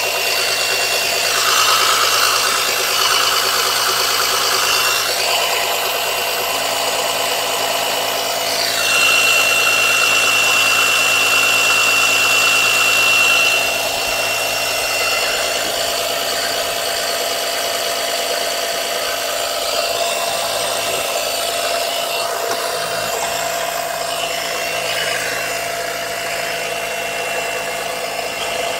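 Small oil suction pump running with a steady hum, drawing through a pipe down the dipstick tube. A rushing noise swells up three times. It is mainly sucking air rather than oil, because holes in its hoses stop it building enough vacuum.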